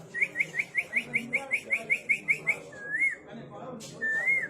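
A person whistling with the mouth in imitation of a canary's song: a quick run of short rising chirps, about five a second, then two longer warbling notes.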